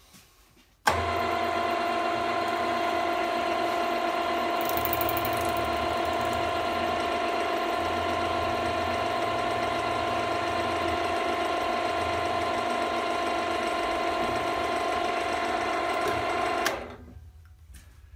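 Drill press motor starting abruptly about a second in and running with a steady whine while a 2.4 mm hole is drilled into a threaded rod, then switched off and running down near the end.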